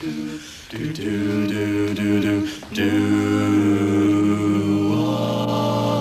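Four teenage boys singing a cappella, holding sustained close-harmony chords with a low bass voice underneath. There is a brief break about two and a half seconds in, and the chord shifts about five seconds in.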